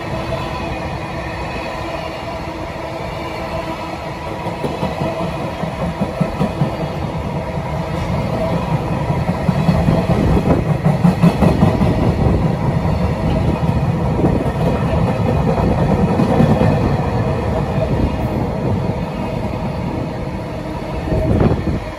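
Freight train of container flat wagons rolling past close by: a steady rumble of steel wheels on the rails with repeated clattering knocks as the wheelsets pass, loudest in the middle, and one louder jolt near the end.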